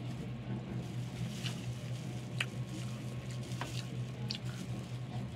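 Mouth sounds of someone eating chicken: chewing with a few short, scattered smacks, over a steady low hum.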